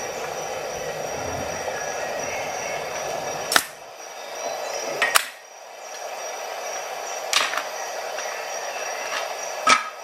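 Four sharp metallic clicks, a second or two apart, from a Leatherman Super Tool multitool being handled. They sit over a steady rumbling background noise that dips briefly after the first two clicks.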